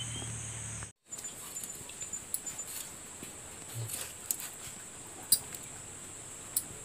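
Crickets chirring steadily in a high, even tone, cut off briefly about a second in and then resuming, with scattered light clicks and taps of hands working over a plate.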